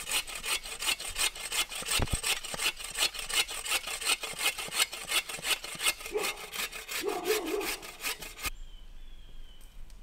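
Hand saw cutting through a log in quick, regular back-and-forth strokes, stopping about eight and a half seconds in.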